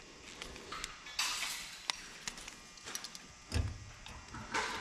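Handling noises from wiring a wall switch: scattered small clicks, a brief scraping rustle about a second in, then a soft thump and another short rustle near the end.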